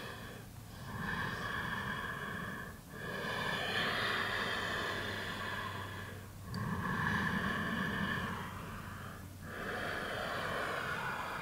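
A woman's slow, deep breathing, picked up close on a clip-on wireless microphone. About four long breaths in and out, each two to three seconds, with short pauses between them, while she holds a deep yoga forward fold.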